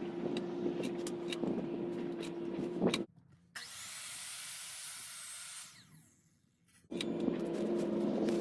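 Power saw cutting wood, broken by abrupt cuts: the sound stops suddenly about three seconds in, a hissing stretch follows, then a moment of near silence before the sawing returns.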